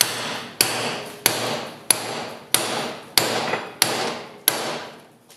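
Hand hammer striking a steel drift driven through a slot in red-hot bar stock, opening the slot into a mortise: eight steady blows about one and a half per second, each with a short metallic ring, stopping shortly before the end.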